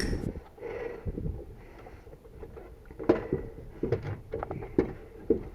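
Quiet handling noise: a handful of light, irregular knocks and rustles, mostly in the second half.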